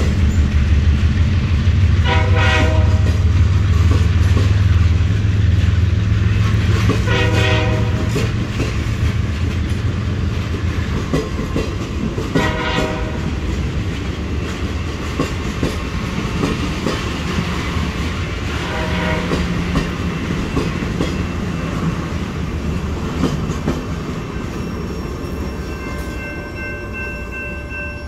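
Passenger cars of a train rolling past with wheel clatter and a low rumble that fades as the train goes by. A train horn sounds briefly four times in the distance, several seconds apart, and near the end a grade-crossing bell rings.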